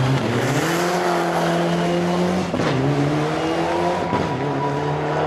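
Mitsubishi Lancer Evolution rally car's engine revving hard through a slide, with tyre squeal. The pitch climbs, holds, drops sharply about halfway through, then climbs again.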